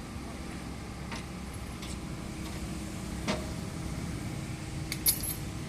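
Komatsu excavator's diesel engine running steadily, with a few sharp metallic knocks; the loudest clank comes near the end.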